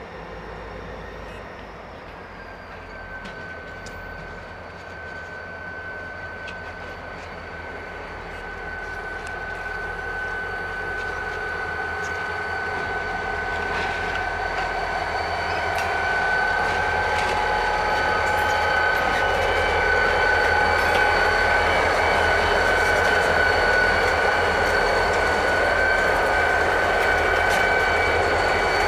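Two EMD SD40-2 diesel-electric locomotives with 16-cylinder EMD 645 engines, pulling a freight train toward the listener and growing steadily louder as they draw alongside. A low engine rumble sits under a steady high-pitched whine.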